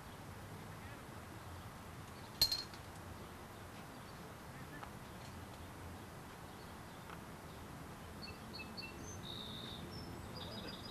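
Quiet outdoor background hiss with a single sharp clink about two and a half seconds in, and a few faint bird chirps near the end.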